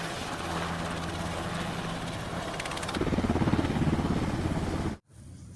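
Helicopter rotor sound effect: a rapid chopping of blades over a steady engine drone. It grows louder about three seconds in, then cuts off abruptly about five seconds in.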